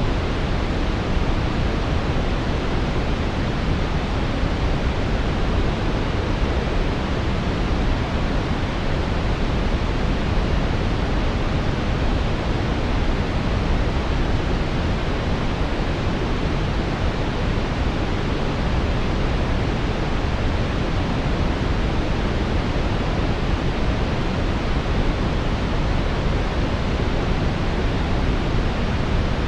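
Brown noise: a steady, deep rushing hiss weighted toward the low end, unchanging throughout.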